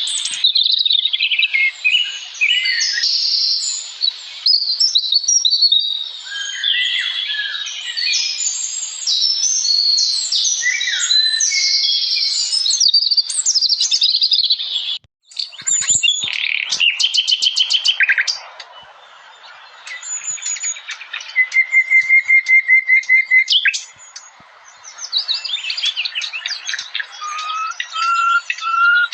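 Small birds chirping and singing, several calls overlapping in a busy chorus. There is a brief break about halfway through. After it come rapid trills and fast runs of repeated notes.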